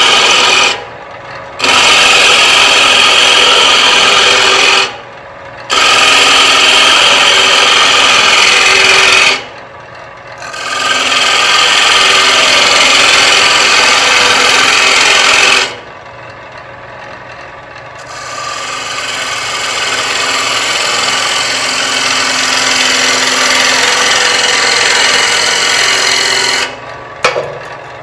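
A 3/8-inch bowl gouge cutting the inside of a spinning wooden bowl blank on a lathe, hollowing the interior: a loud, even hiss in a series of cuts several seconds long. Between cuts there are short, quieter breaks while the lathe runs on, and the last, longer cut starts softer and builds.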